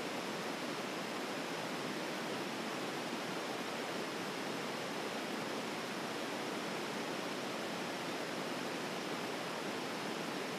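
Steady, even static hiss, with no other sound in it.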